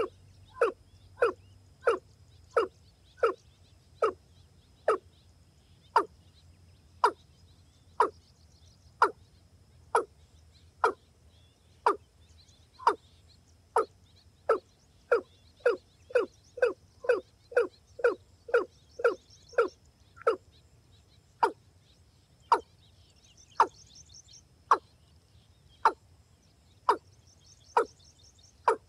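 Rail (gà nước) calling: one short, sharp, falling note repeated over and over, about once a second, quickening to about two a second in the middle, then slowing to about one a second again. A faint high steady insect buzz runs underneath, with brief high chirps near the end.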